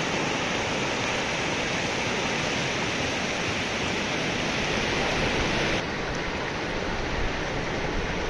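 Fast hill river rushing over rocks and boulders: a steady, even rush of churning water, a little softer and duller after a change about six seconds in.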